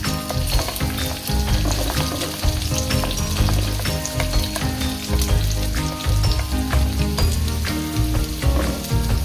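Sliced onion, carrot and wood ear mushrooms sizzling and crackling in hot oil in a nonstick wok as they are tipped in from a plate and stirred with wooden chopsticks.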